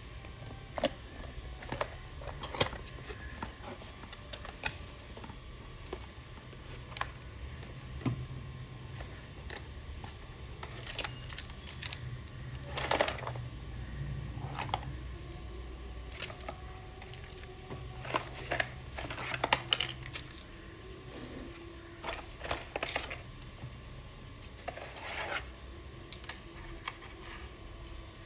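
Small objects handled on a hard surface: scattered clicks, taps and rustles at irregular times, over a low steady hum.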